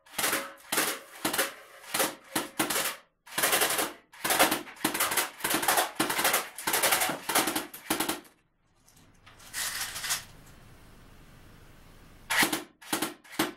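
Homemade CO2-powered air submachine gun firing: a rapid, uneven run of sharp, hissing gas discharges for about eight seconds, then a pause with one short hiss, then a few more shots near the end. The gun is leaking gas even after a valve change.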